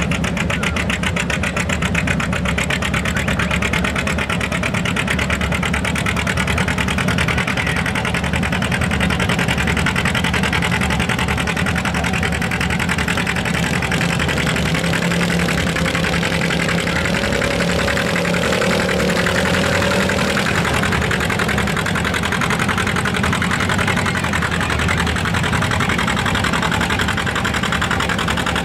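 Vintage John Deere tractor engine running steadily under full load as it pulls a weight-transfer sled, with an even, rapid firing pulse throughout.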